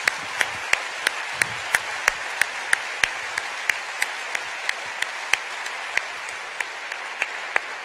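Audience applause filling a hall, with sharper single claps close to the microphone about three times a second.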